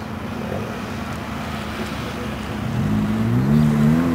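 Car engines running as cars drive along a tarmac course. Near the end one engine revs up, its pitch rising and then dropping away.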